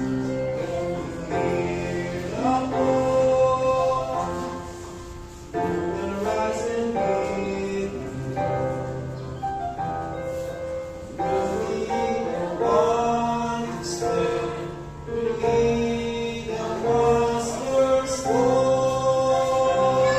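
Small youth choir of mostly female voices singing a gospel hymn in slow, sustained phrases over steady instrumental accompaniment.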